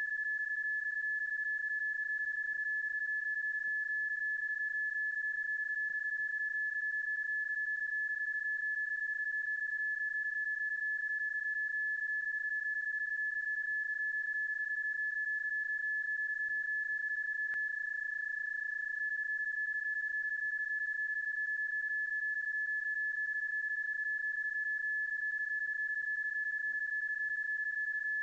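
PSK31 data-mode audio tone, a stretched and looped sound effect rather than the real signal of the contact: one steady tone, broken only by a brief click a little past halfway.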